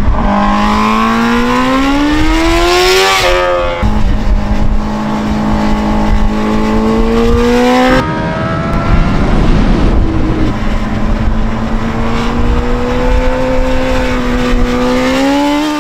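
2020 Honda Fireblade's inline-four engine at high revs under hard acceleration, its pitch rising steadily. The pitch drops back sharply at about three and a half seconds and again at about eight seconds, then climbs again near the end.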